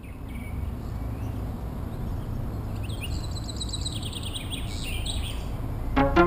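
Birds singing: short runs of quick high chirping notes, the longest about three to five seconds in, over a low steady rumble. Music with rhythmic plucked notes starts near the end.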